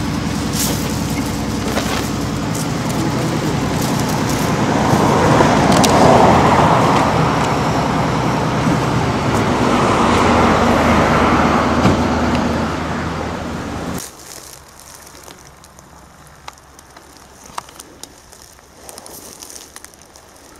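Road traffic: a vehicle engine running steadily as cars pass, swelling twice. It cuts off abruptly about two-thirds of the way in, leaving faint rustling of grass and brush.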